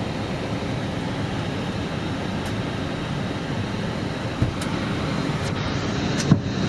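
Steady airflow and engine noise inside an airliner's cockpit in flight, with two brief knocks, the louder one near the end.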